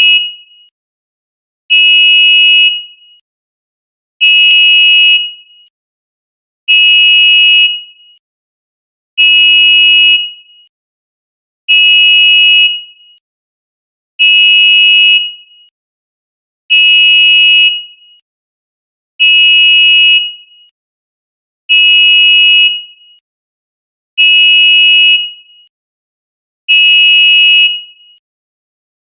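Jeep horn honking in loud, high-pitched blasts of about a second each, repeated evenly every two and a half seconds, with silence between blasts.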